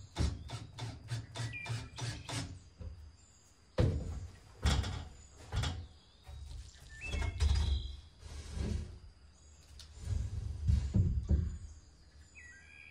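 Hammer striking wood while a rafter is fastened at the top of a framed wall: a quick run of light taps, then heavier single blows about a second apart from about four seconds in.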